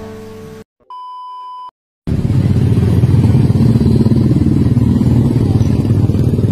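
A short electronic beep about a second in, followed by a loud, steady low rumble of a jeepney engine running from about two seconds in.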